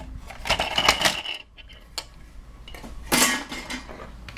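Knocks, clicks and light clatter of a disassembled computer DVD drive's metal casing and plastic parts being handled and set down on a desk, with a louder clatter about three seconds in.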